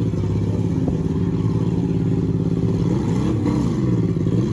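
Demolition derby car engines running loud and rough. About three seconds in, one engine's pitch drops and climbs back up as it is revved.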